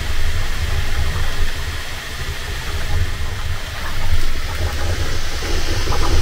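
Bambu Lab X1 Carbon 3D printer running near the end of a print: steady whirring of its fans over a heavy low hum. Short buzzes of the moving print head come in near the end.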